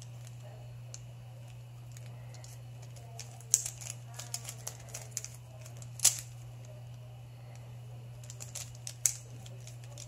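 Stickerless plastic 3x3 Rubik's cube being turned by hand: irregular plastic clicks and clacks as the layers turn, sparse at first, then in quick clusters with a few sharper snaps. A steady low hum runs underneath.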